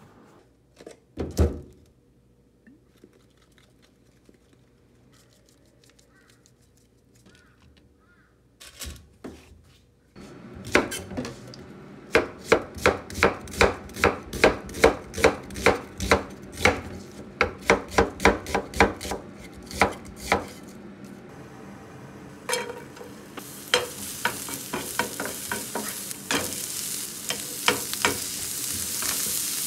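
A single thump about a second in, then a knife slicing an onion on a wooden cutting board in steady strokes, about two or three a second. Near the end, sliced onion and garlic sizzle in a frying pan, with the clicks of a wooden spoon stirring them.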